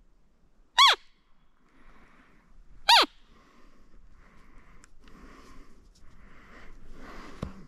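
Roe deer lure call blown twice, about two seconds apart: short, loud, high squeaks that fall in pitch, imitating a doe's or fawn's call to bring in a buck. Quiet rustling follows.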